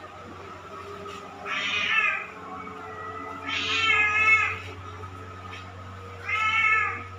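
Domestic cat meowing three times, a couple of seconds apart, each meow lasting under a second to about a second.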